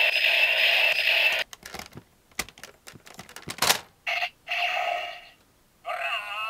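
A toy's electronic sound effect rings on and stops about a second and a half in. Plastic clicks and a sharp snap follow as a ranger key is fitted into the slot of a Gokaiger pirate-ship toy. The ship toy then answers with electronic beeps and sliding electronic sound effects.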